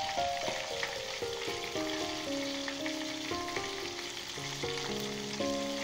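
Chicken pieces sizzling steadily in hot oil in an aluminium pot, with soft background music of slow, held notes over it.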